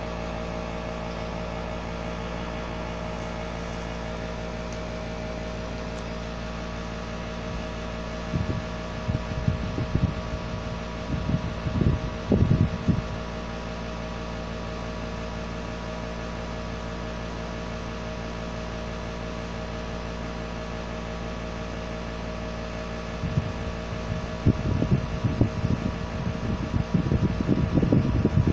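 A steady hum made of several steady tones, broken twice by stretches of irregular low rumbling bumps, one about a third of the way in and one near the end.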